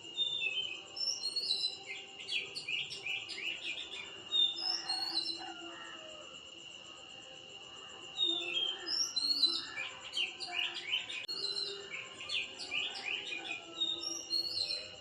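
Birds chirping and twittering in two bouts of quick calls, over a steady high-pitched insect drone.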